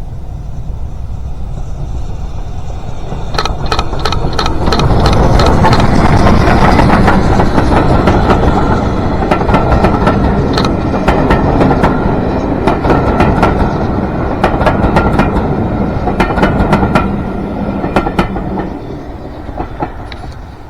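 A train passing close by, growing loudest about six seconds in, with repeated sharp clicks of wheels over rail joints, then easing off near the end.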